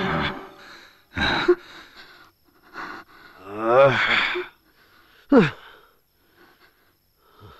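A man's hoarse, strained gasps and wordless cries: a short burst about a second in, a wavering pitched cry around four seconds in, and a sharp cry that falls in pitch a little after five seconds.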